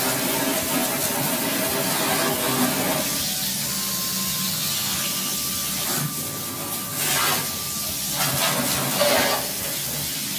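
A shower hose sprays a high-pressure jet of water onto an evaporative cooler's honeycomb cooling pad, making a steady hiss and splatter. It grows louder a couple of times in the second half as the jet moves across the pad.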